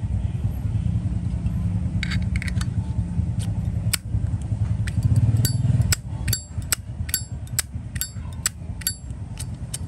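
Zippo lighter lid being flipped open and snapped shut over and over: a string of sharp metallic clicks with a bright ringing clink, coming two or three a second through the second half, over a steady low traffic rumble.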